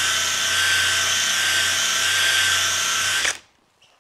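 Cordless drill spinning a rotary unicorn brush across a ski base, brushing off hard matte black wax: a steady motor whine over the hiss of the bristles on the base. The drill stops abruptly a little over three seconds in.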